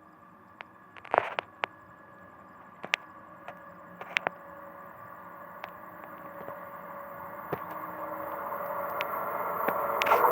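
An approaching express train, hauled by a WAP-7 electric locomotive, whose rumble grows steadily louder, with a few sharp clicks along the way. Near the end the fast, even clatter of its wheels over the rail joints sets in.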